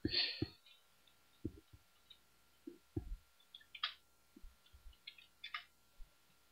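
Computer keyboard being typed on: a scatter of irregular soft key clicks and taps, opening with a brief louder rustle. A faint steady high tone runs underneath.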